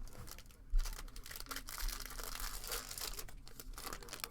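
A trading card pack wrapper being torn open and crinkled, a dense crackling that starts with a sharp rip about a second in.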